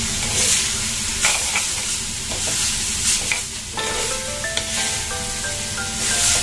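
Chopped beetroot frying in oil in a clay pot, sizzling as a spoon stirs and scrapes through it in repeated strokes. Background music with a melody comes in about four seconds in.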